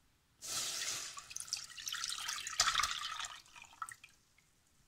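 Milk poured from a bowl into a stainless steel saucepan, a steady splashing stream that starts about half a second in. It thins to a few drips and stops near the end.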